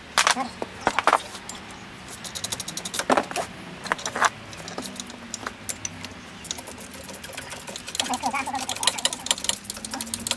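Metal hand tools clinking and clanking as bolts are worked on a front wheel hub: a few sharp metallic clanks in the first seconds, then a run of rapid clicking near the end.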